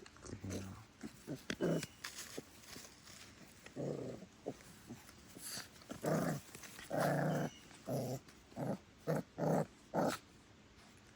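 Pit bull puppies growling and giving short barks in a string of brief bursts, coming thicker and louder in the second half.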